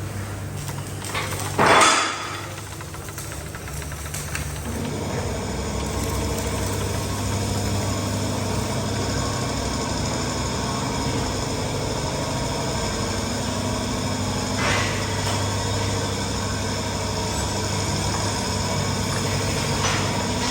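Machinery running steadily with a humming drone. A loud sharp bang or clank cuts through about two seconds in, and a lighter one comes near fifteen seconds.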